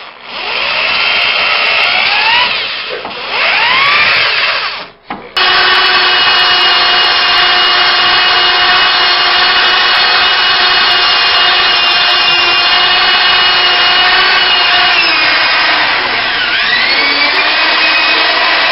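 Power drill boring out spot welds in a car's steel frame rail: the motor whine spins up and rises, stops twice in the first five seconds, then runs steadily with the bit grinding on the metal. Near the end its pitch sags as the bit bites, then it recovers.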